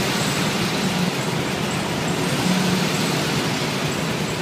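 Engines of a queue of classic air-cooled Volkswagens idling and creeping forward under a low covered roof: a steady low engine hum over a haze of traffic noise, swelling slightly twice.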